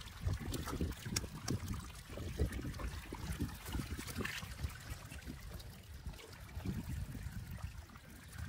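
Water sloshing and trickling in uneven pulses, with a few sharp clicks.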